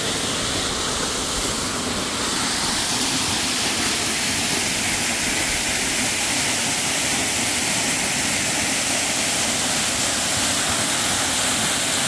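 Waterfall pouring over a rock face onto rocks and into a pool: a steady, loud rush of water that does not change.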